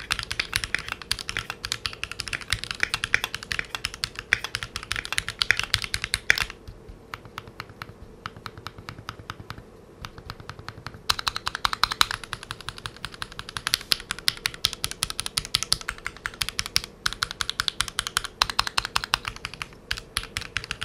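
Typing on a Keychron Q2 mechanical keyboard with red linear switches: a fast, dense run of key clicks, easing to lighter, quieter keystrokes for a few seconds near the middle before picking up again.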